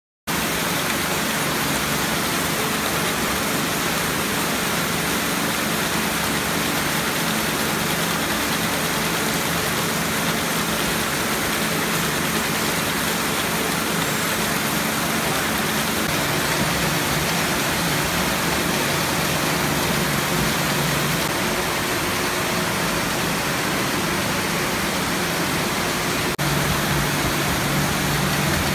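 Steady machinery noise of a fruit packing line, with conveyors carrying fruit under a print-and-apply labeler and a low hum beneath. It rises slightly in level near the end.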